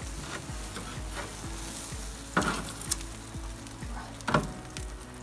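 Spatchcocked chicken sizzling on the grate directly over the hot charcoal of a barrel grill as it is turned with tongs. A steady frying hiss, with two short sharp louder sounds about two and a half and four and a half seconds in.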